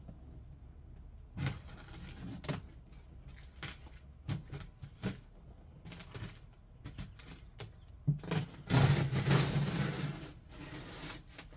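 A large cardboard e-bike shipping box being handled and worked open by hand: scattered scrapes, rustles and knocks on the cardboard, then a louder rough scraping and rustling stretch of about two seconds that starts suddenly near the end.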